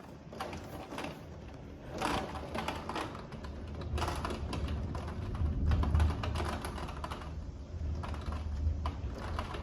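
Heavy rain and wind of a severe thunderstorm: rapid, irregular tapping over a low rumble that swells about four seconds in and peaks around six seconds.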